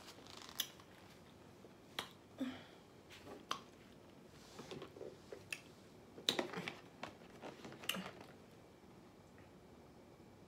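Wet mouth smacks and chewing clicks while eating: a scattered run of short, sharp smacks over several seconds that dies away after about eight seconds.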